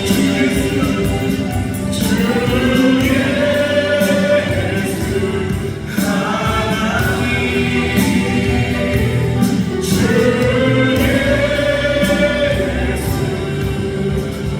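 Music: a choir singing in phrases that restart about every four seconds.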